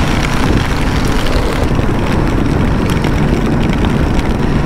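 Motorcycle riding noise at about 60 km/h in heavy rain: a steady, loud wind rush and rumble on the microphone, mixed with the engine and the hiss of tyres on a wet road.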